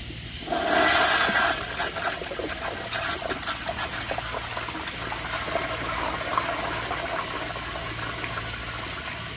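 Sloan Regal flushometer with a 3.5-gallon diaphragm flushing a 1992 Kohler Kingston wall-hung siphon-jet toilet, its supply pressure turned down. A loud rush of water starts about half a second in and is loudest for about a second. Then comes a steady gushing swirl as the bowl drains, easing off slowly.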